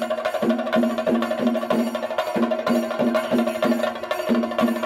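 A group of Kerala chenda drums played with sticks in a steady, fast beat, about three strokes a second.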